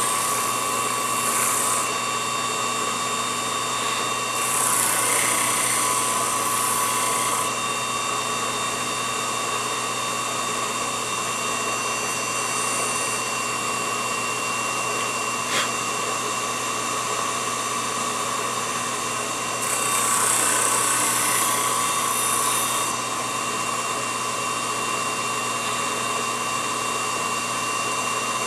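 Small electric motor of a mini lathe running with a steady high-pitched whine. Stretches of hissing a few seconds long come near the start, about 5 s in and about 20 s in, as a wooden piece is pressed against the spinning cylinder and sanded. There is one brief click about halfway through.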